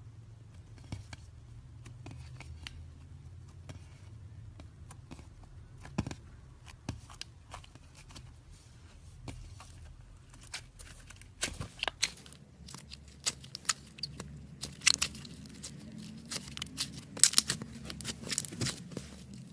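Hands working slime, with scattered crackling clicks and pops that grow busier and louder in the second half.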